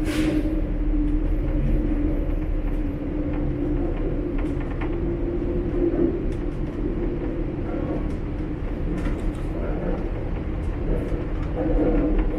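Steady running noise heard inside a Shanghai Metro Line 10 subway car: a continuous low rumble with a steady hum, and scattered light clicks and rattles.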